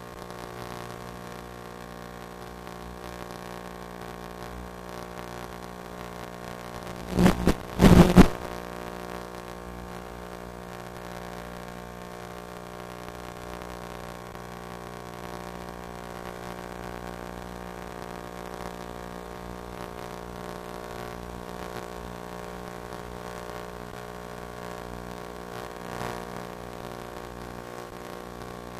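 A steady hum of many even tones that does not change in pitch, broken by two short, loud bursts of noise about seven and eight seconds in.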